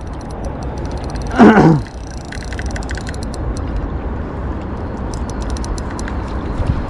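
Fishing reel ticking in short runs of rapid clicks over a steady low rumble, while a large catfish is being played on the line. About a second and a half in, a voice gives a short exclamation that falls in pitch.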